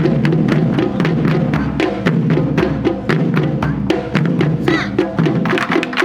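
Japanese taiko drum ensemble playing a fast, driving rhythm: rapid, evenly repeating drumbeats with deep booming strokes and sharp, wood-like clicks.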